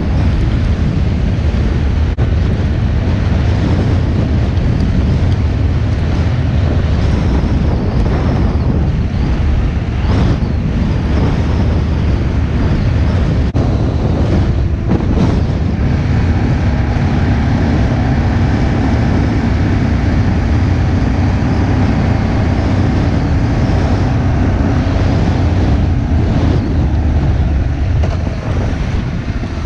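Vehicle driving: steady low rumble of tyres and engine with wind noise on the microphone. About halfway through, a steady engine drone rises above the rumble.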